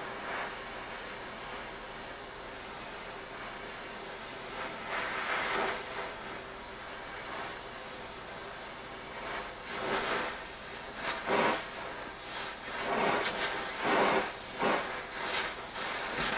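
Oxy-acetylene torch with a rosebud heating tip hissing steadily as it heats a steel bar red hot for silver soldering. From about ten seconds in, the hiss swells in a quick string of short surges.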